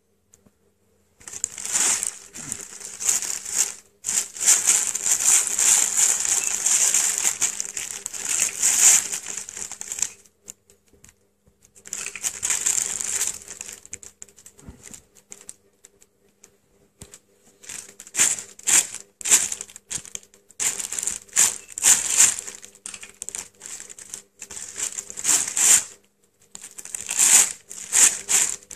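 Thin plastic bag crinkling and rustling as a cat squirms inside it. The first run lasts several seconds, and toward the end it breaks into many short rustles with brief pauses.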